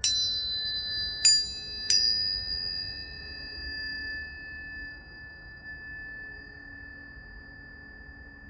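Planetary tuning forks struck three times, once at the start and twice more about a second later in quick succession. Each strike leaves clear, pure high tones ringing on together and slowly fading.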